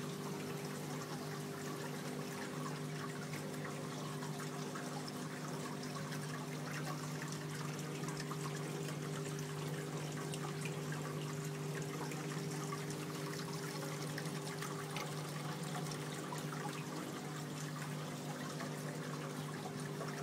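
Water from a slate wall fountain sheeting down the slate panel and trickling into the river-rock basin at its foot: a steady, even trickle with no breaks, over a steady low hum.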